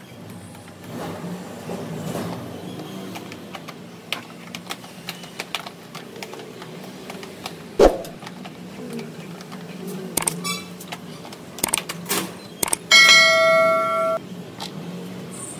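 Light clicks and knocks from screws and a plastic scooter body panel being worked by hand, with one sharper knock about halfway through. Near the end comes a subscribe-button sound effect: a few quick clicks, then a ringing bell chime lasting about a second, the loudest sound here.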